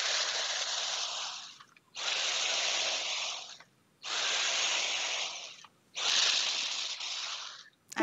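Dyson V8 Animal Pro cordless vacuum on its combination tool, running at Max power and sucking up dry cereal, pepper flakes, coffee grounds and espresso beans from a countertop. It makes a steady airy rush in four runs of about a second and a half, with short breaks between them.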